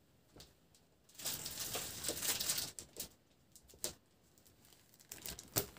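Plastic wrapping rustling for a second or two as a wrapped embroidery frame is handled, followed by a few light clicks.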